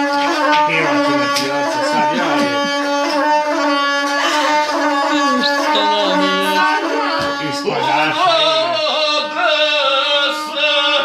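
Gusle, the single-string bowed folk fiddle, playing a wavering melody over a steady held low tone, with a man's singing voice joining in about two-thirds of the way through.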